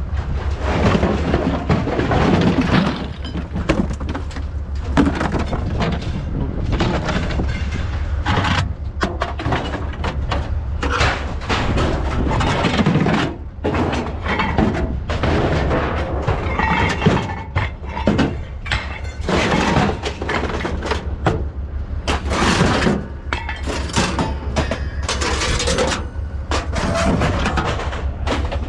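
Scrap metal crashing and clattering in irregular bursts as a load is unloaded, over an engine running steadily underneath.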